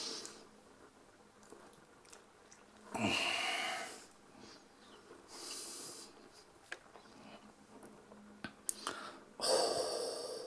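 A man making loud, breathy mock-eating noises in three bursts, about three seconds in, about five seconds in and near the end, with a few sharp clicks between them.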